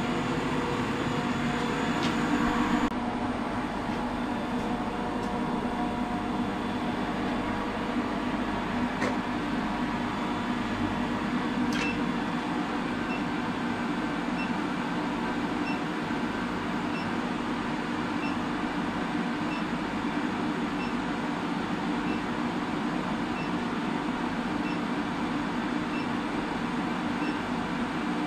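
Induction heater running with a steady hum while its flexible wand coil heats a steel bar red hot. The hum drops slightly about three seconds in, and faint high ticks come roughly once a second in the second half.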